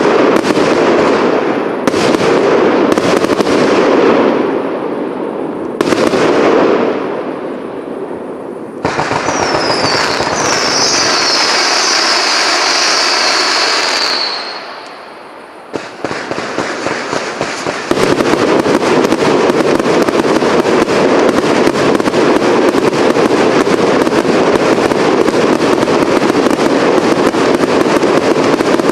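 Cake firework battery going off: a few separate bangs with crackling tails, then a high whistle falling slowly in pitch, then from about eighteen seconds in a dense rapid-fire run of bangs and crackle.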